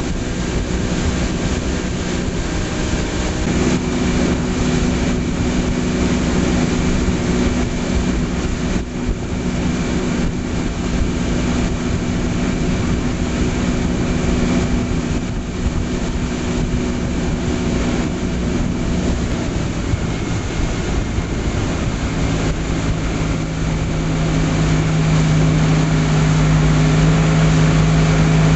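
Towing motorboat's engine running steadily at speed under rushing wind and water. Its note shifts lower and grows a little louder about three-quarters of the way through.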